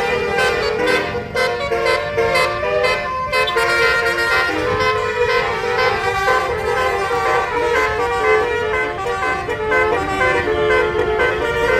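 Bus 'telolet basuri' multi-note air horn playing a tune, its notes stepping from one pitch to the next without a break.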